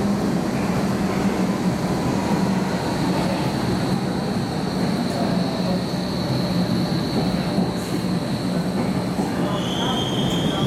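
Hamburg U-Bahn DT5 train running past along the platform: steady rolling rumble with a low hum, and a high, steady squeal held through most of the passage. A second, slightly lower squeal starts near the end.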